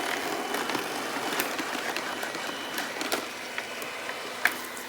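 Yeedi robot vacuum on a cleaning run: a steady whir from its drive and brushes, with several sharp knocks, the loudest near the end. Its 220 V suction motor is not running on the 110 V supply.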